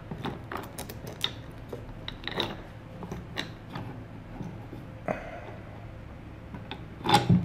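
A steel test bolt being fitted through the pivot holes of a homemade wooden can crusher's lever arm: scattered light clicks and small knocks of metal and wood being handled, with a few louder knocks about a second apart in the first few seconds.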